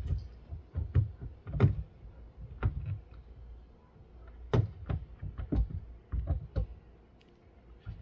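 Plastic taillight assembly being worked into its opening on a car's rear body: irregular knocks and clunks as it is pushed and lined up, the loudest about one and a half seconds in and again about four and a half seconds in.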